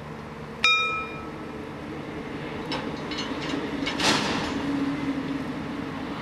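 A single sharp, ringing metallic clang, a steel bar striking steel, about half a second in. After it a steady low machine rumble with a hum builds, with a brief hissing rush about four seconds in.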